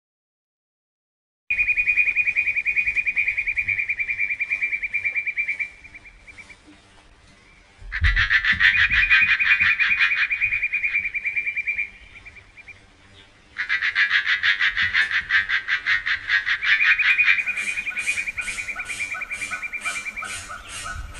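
A rapid, evenly pulsed trilling call, repeated in three bouts of about four to six seconds each, with short pauses between. Near the end a second, lower trill joins in.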